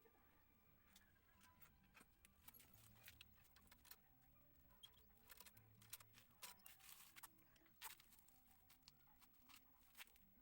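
Near silence with faint, scattered light clicks and taps, more of them in the middle stretch.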